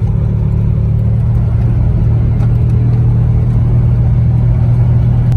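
An old Oldsmobile car running, with a loud, steady low drone.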